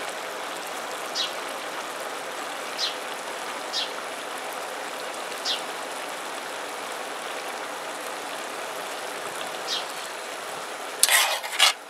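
Pot of jambalaya simmering on a camp stove, a steady watery hiss with a few short high chirps. About eleven seconds in, a metal ladle starts scraping loudly around the bottom of the pot to lift off the stuck-on rice and corn.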